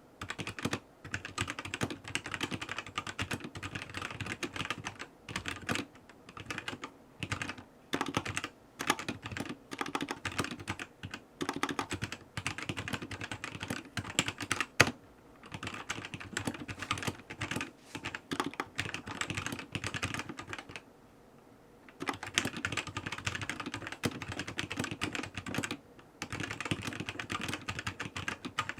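Fast typing on a ZI YOU LANG K68 mechanical keyboard with red linear switches: dense runs of key clicks broken by short pauses, and a quiet gap of about a second two-thirds of the way through.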